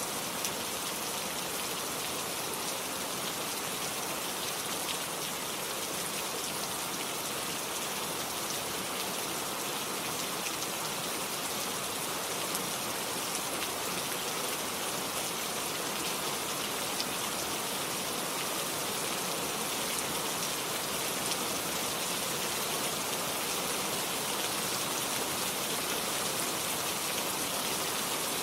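Steady rain falling, an even hiss with scattered drops hitting a surface.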